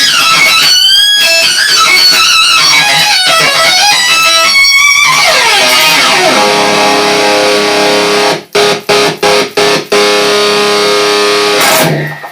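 Electric guitar played through an octave pedal set two octaves up, giving high, squealing, bending lines. About six seconds in the pitch dives down into a held chord that cuts out and back in several times before it ends.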